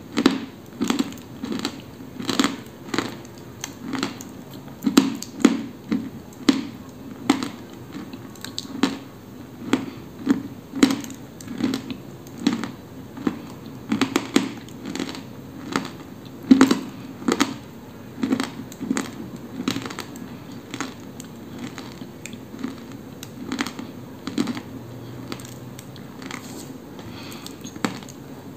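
Dry edible clay (koksol) crunching as it is bitten and chewed close to the microphone: a sharp crunch every half second to a second, thinning out over the last few seconds.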